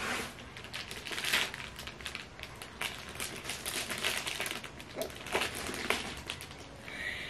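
Clear plastic wrapping crinkling and crackling as a bagged backpack is held up and turned over in the hands, with louder crackles now and then.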